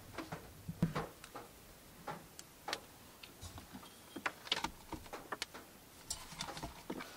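Irregular light taps and clicks of small bottles and objects being picked up and set down on a wooden shelf, a few louder knocks among them.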